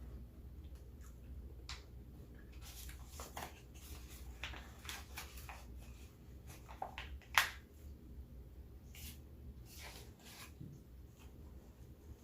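Eating sounds: a string of small, irregular clicks and crackles of chewing and handling food, with one sharper, louder click about two-thirds of the way through, over a low steady hum.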